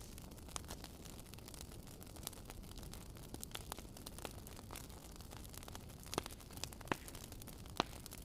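Wood fire burning in a fireplace, crackling with irregular sharp pops over a soft steady rush, the sharpest pops coming in the last few seconds.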